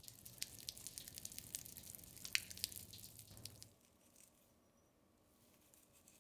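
Water dripping in irregular sharp drops over a low background hum, cutting off suddenly about three and a half seconds in. After that come faint crackles of dried herbs being stripped from their stems by hand.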